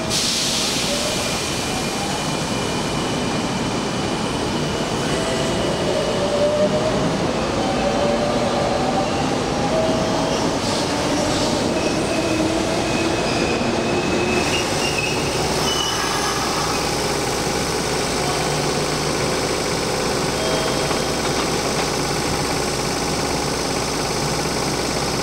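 Hanshin Railway electric train running at a station platform: a sharp hiss at the start, then a whine that slides in pitch for several seconds over steady running noise.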